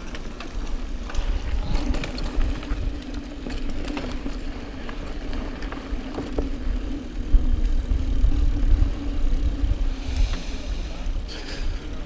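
Riding noise of a hardtail mountain bike: tyres rolling with a steady hum, scattered rattles and clicks from the bike, and low wind rumble on the microphone that is heaviest about seven to ten seconds in.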